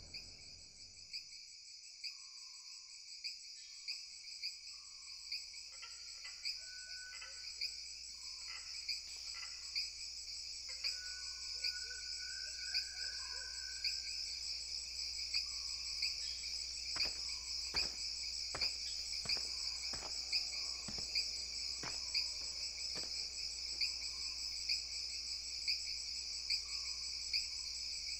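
Crickets chirping steadily in a dense chorus, fading in over the first couple of seconds, with faint regular ticks a little under a second apart.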